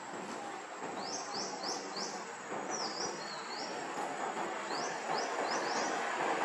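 A bird calling: two runs of quick rising chirps, about four notes each, with a few wavering, falling notes between them, over a steady background hiss.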